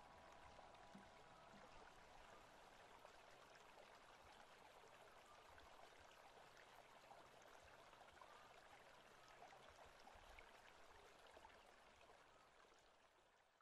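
Faint, steady running-water ambience, a soft rush with small scattered ticks, fading out near the end.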